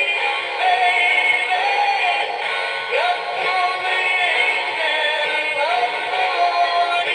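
Animatronic singing 'Big Mouth' toy playing its song through its small, tinny speaker, with faint low clicks throughout. Its mouth and tail gears have been repaired.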